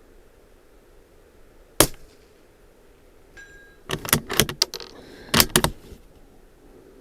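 Suppressed .22LR bolt-action rifle shot about two seconds in, followed roughly a second and a half later by the faint ring of the distant steel plate being hit. Then a quick run of metallic clicks and clacks as the bolt is worked to eject the empty case and chamber the next round.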